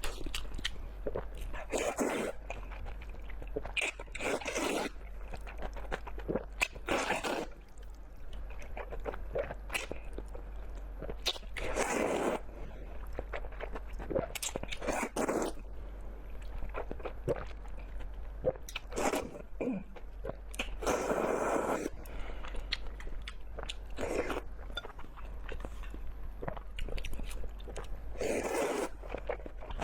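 A person eating close to the microphone: bites and chewing come in short crunchy bursts every few seconds, with small clicks between them, over a faint low hum.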